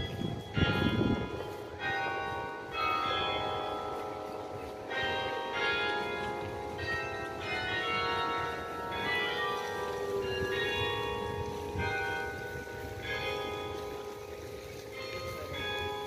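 Church tower bells playing a melody: one bell struck after another, each note ringing on and overlapping the next. A brief low rumble sounds near the start.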